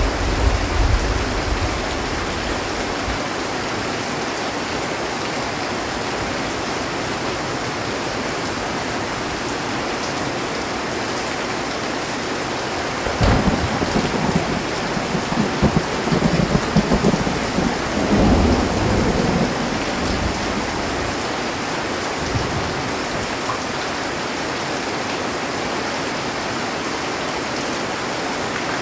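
Heavy rain drumming steadily on a metal roof, with a low rumble of thunder fading out in the first few seconds and another rolling peal of thunder around the middle.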